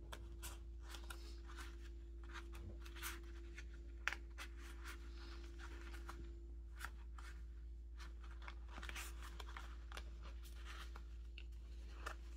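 Stiff paper swatch cards on a metal binder ring being flipped through and handled: soft, irregular flicks and rustles of card, with a faint steady hum underneath.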